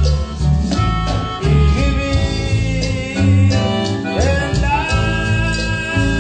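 Recorded Spanish-language Christian song: band music with a steady bass pulse under a held, pitched melody line.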